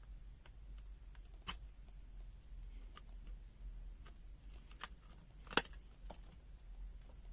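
Scattered small clicks and taps from handling and working on a plastic multimeter case, with one sharper click a little past halfway, over a low steady hum.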